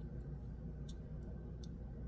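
Two faint, light clicks about three-quarters of a second apart over a steady low hum, typical of a small hard object being handled.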